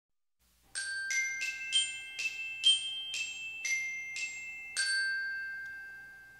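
Short logo jingle of about ten struck, bell-like mallet notes, roughly two a second. The last note rings out and fades slowly.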